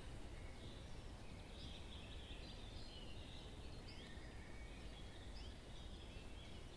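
Quiet outdoor ambience: a faint steady low rumble with small birds chirping on and off.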